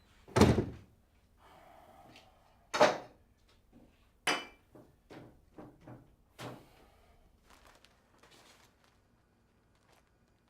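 A series of bangs and knocks on a door: three loud bangs in the first few seconds, then several lighter knocks.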